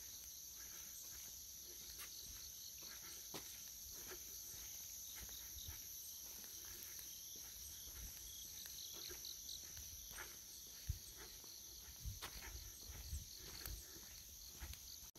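Steady high-pitched chirring of crickets in the grass, with faint footsteps on a dirt path now and then.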